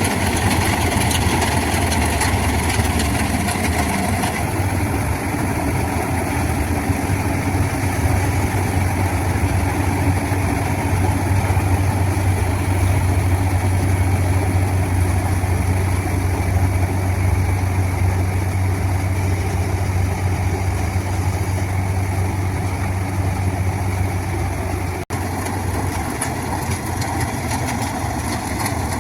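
John Deere combine harvester's diesel engine running steadily with a deep hum, with a brief dip in level about 25 seconds in.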